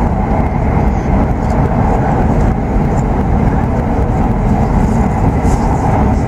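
Steady cabin running noise of an E7 series Shinkansen at speed: an even low rumble with the rush of the train over the viaduct, heard inside the car.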